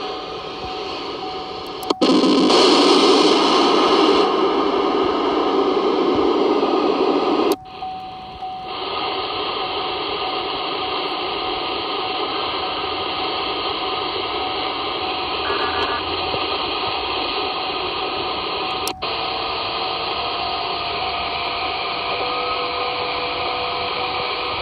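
CB radio receiver on 27.255 MHz giving steady static hiss, broken by sharp clicks as the mode switch is turned, from AM through USB to LSB. The hiss comes louder and fuller for a few seconds near the start, then turns narrower in sideband mode. Faint steady whistles come through near the end.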